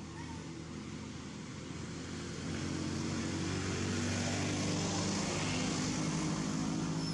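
A motor engine running steadily with a low hum and hiss, growing louder about two and a half seconds in.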